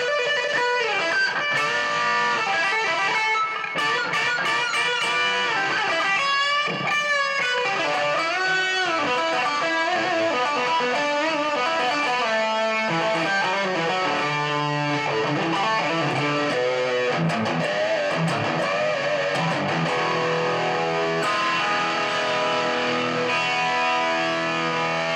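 Career Les Paul electric guitar played through distortion: lead lines with bent, wavering notes, turning to steadier, lower held notes and chords from about halfway through.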